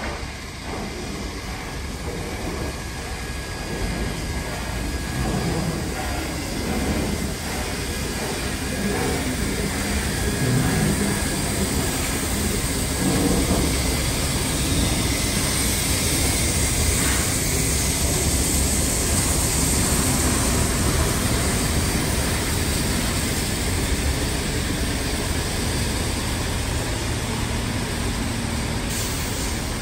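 Steam locomotives 3801 and 3526 double-heading a heritage train as it rolls slowly into the platform: a low rumble of wheels on rail that grows louder over the first ten seconds. Steam hisses from the cylinders as the engines draw past, strongest around the middle.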